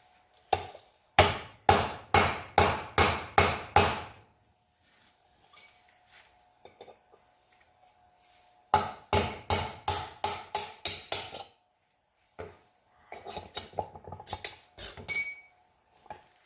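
Hammer blows on metal in two quick runs, about six strikes and then about nine faster ones. Lighter, scattered knocks follow, and one blow near the end leaves a short metallic ring.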